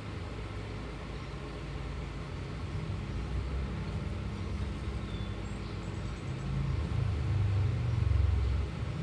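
Low engine rumble with a faint hum, growing louder about six seconds in and easing off near the end, like a vehicle running or passing close by.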